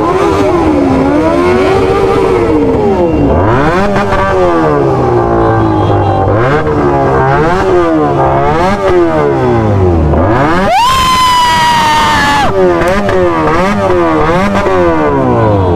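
Motorcycle engines revved up and dropped back again and again, rising and falling every second or two. About eleven seconds in, a loud high-pitched tone rises quickly and holds for about a second and a half.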